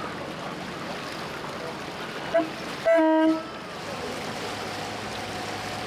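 Boat horn: a short pip, then a half-second toot, the loudest sound here, over a steady low engine hum.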